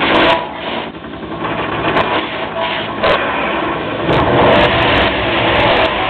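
Car engines running and revving loudly in a smoky burnout stunt, with short bursts of hissing from the set's steam jets.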